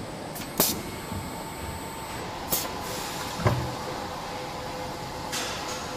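Assembly-line machinery noise: a steady hum with three short hisses of compressed air and a single clunk about three and a half seconds in.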